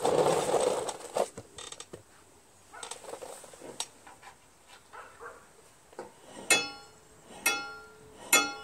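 Steel lawn tractor mower blade turned by hand on its deck spindle against a washer set on the deck: a scraping rustle in the first second, then, from about six seconds in, three ringing metallic tings about a second apart as the blade tip strikes the washer. The washer is a gauge for whether both blade ends pass at the same height, a check for a bent blade or spindle behind the deck's vibration.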